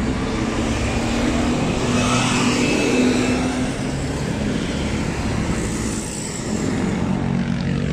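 Road traffic going past close by: engines and tyre noise from passing vehicles, a continuous rumble at an even level.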